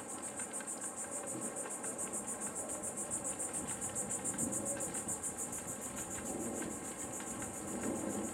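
Insects calling in a steady, high-pitched, rapidly pulsing chorus.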